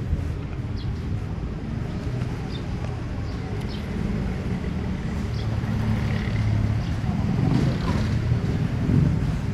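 A motor vehicle's engine running, a steady low rumble with a hum that grows a little stronger about four seconds in.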